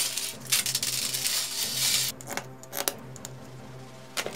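Crinkling of a plastic LEGO parts bag being handled, for about the first two seconds, then a few sharp clicks of plastic LEGO pieces.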